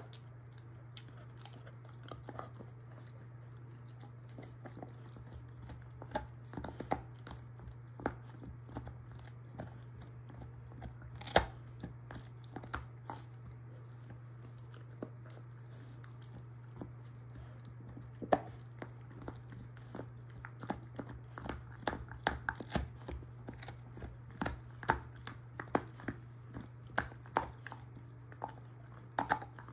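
German shorthaired pointer gnawing a beef soup bone, with scattered cracks and crunches of teeth on bone: sparse at first with one loud crack partway through, then more frequent crunching in the last third. A steady low hum runs underneath.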